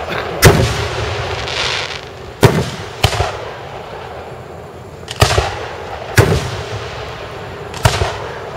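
Aerial firework shells bursting in a display, a sharp boom every second or two, about six in all, each trailing off in a short rumble.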